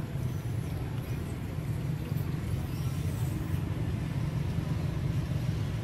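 Low, steady rumble of a motor vehicle engine running.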